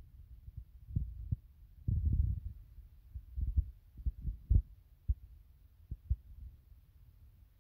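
Low, irregular rumbling in gusts with several short, sharp thumps, typical of wind buffeting the microphone.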